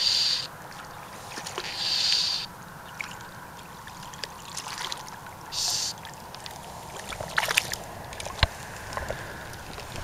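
Fly line being stripped in by hand through the rod guides, three short hissing rasps at intervals. A few sharp clicks come near the end.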